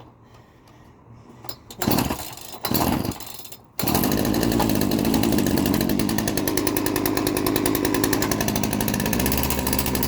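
Old Craftsman 42cc two-stroke chainsaw: two short bursts of sound, then about four seconds in the saw fires and runs steadily with a fast, even beat, still on choke while it warms up.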